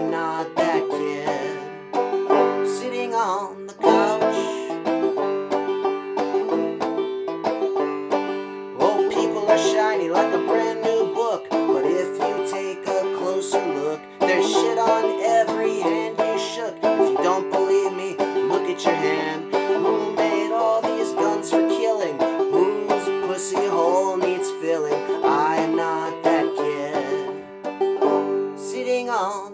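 Banjo played clawhammer style: an instrumental passage of quick plucked notes over strings left ringing underneath.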